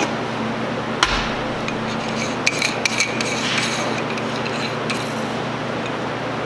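Metal suspension parts, a coil spring and a threaded coilover sleeve, being handled on a workbench: one sharp clink about a second in, then a run of small clicks and knocks, over a steady shop hum.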